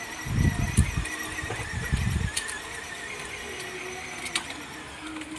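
Battery ride-on toy car's electric drive motor and gearbox whining at a steady high pitch as it drives under an adult rider's weight, with a few low thumps in the first two seconds.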